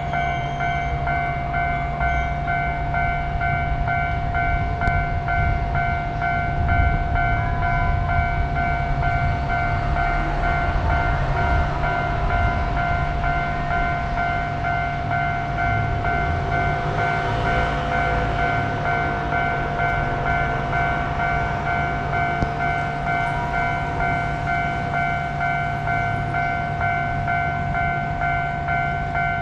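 Japanese level-crossing warning bell dinging in a rapid, steady repeat while a train runs past, its rumble swelling toward the middle.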